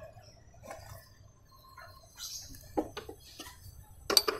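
Light metallic clicks and clinks of an open-end spanner and hands working on a Yamaha Mio Z crankshaft and crankcase, with a louder cluster of ringing clinks near the end.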